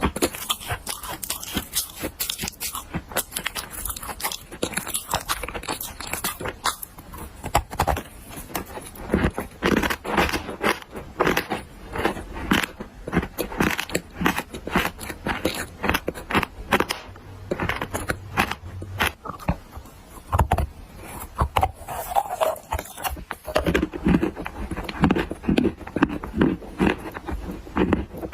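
Black clay being bitten and chewed: a continuous run of irregular crunches and crackles.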